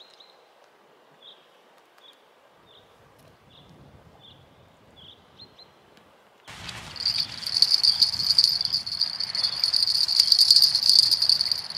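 A spinning fishing reel cranked fast, starting suddenly about two-thirds of the way in: a loud, steady, high whirring buzz as the line is retrieved after a bite, with the rig snagged on the bottom. Before it, only faint scattered high tinkles, about one a second.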